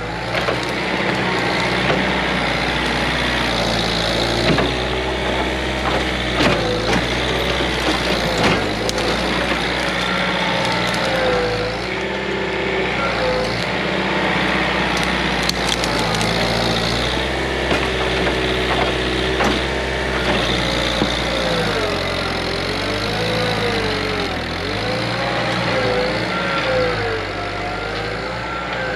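John Deere 110 tractor loader backhoe's diesel engine working under load, its pitch rising and falling, while brush and branches crack and snap as they are pushed.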